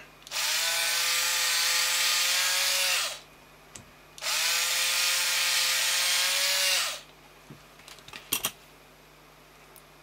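Cordless drill spinning a drill-driven wire stripper head in two runs of about three seconds each, stripping the insulation off an MMJ installation cable. Each run holds a steady pitch and drops away as the motor stops. A few light clicks near the end.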